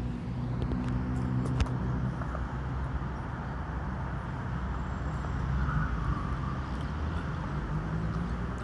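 Steady low rumble of a motor vehicle engine running, with a single sharp click about a second and a half in.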